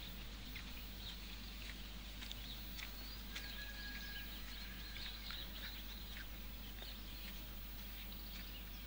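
Birds chirping and calling over a faint steady outdoor background, with one thin held note lasting about a second around the middle.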